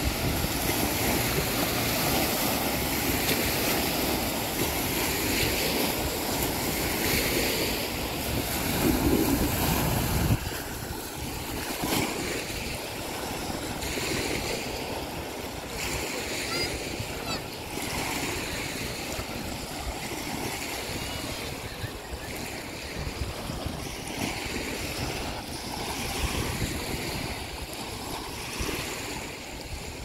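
Small waves washing on the shore, with wind buffeting the microphone; the wind rumble drops away about ten seconds in, leaving the steady wash of the water.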